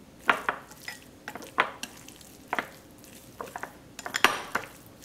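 Chopsticks stirring sliced beef with its marinade and minced garlic in a glass bowl: irregular clicks and taps of the chopsticks against the bowl, with soft wet mixing sounds between.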